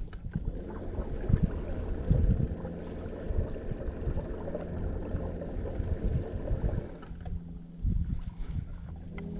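A boat's motor running steadily, with gusts of wind buffeting the microphone.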